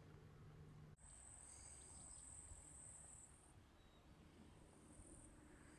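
Near silence with the faint, steady high-pitched chirring of crickets, starting about a second in and breaking off briefly near the four-second mark.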